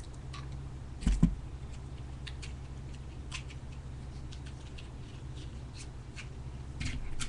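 Faint scattered clicks and small scratchy handling sounds over a steady low hum, with a dull thump about a second in and another small knock near the end.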